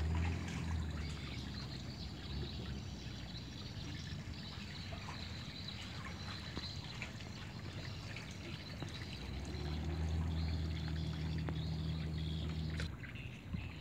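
Water trickling and lapping around a wooden canoe as it is paddled. A low steady hum sounds briefly at the start and again for a few seconds near the end.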